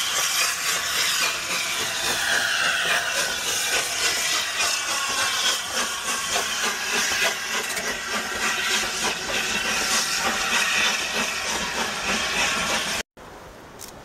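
LNER A4 Pacific steam locomotive No. 4464 moving along, a loud steady hiss of escaping steam with many quick knocks and a faint whine that glides down in pitch around two seconds in. The sound cuts off abruptly about 13 seconds in, leaving quieter wind noise.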